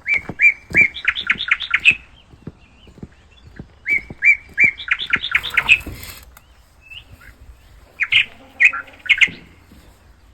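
A bird singing the same short phrase three times: a few separate chirps, then a quick run of rising notes. Scattered soft knocks sound underneath.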